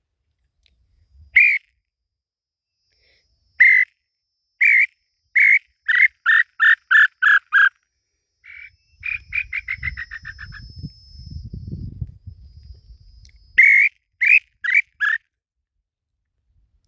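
Tataupa tinamou song: a run of clear whistled notes that start spaced apart, then speed up into a quick trill while dropping in pitch. A fainter fast falling run follows, and then four more falling notes near the end.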